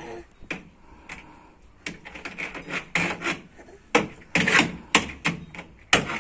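Toy vehicles being knocked and scraped on a hard surface: irregular clacks and rubbing strokes, sparse at first and busier from about two seconds in.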